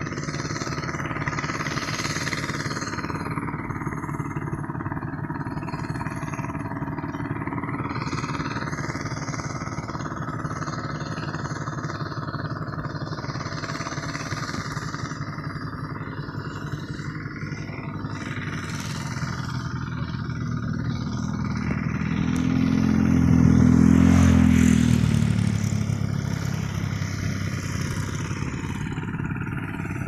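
Steady outdoor background hum, with a motor vehicle passing that grows louder and fades over several seconds about three-quarters of the way through.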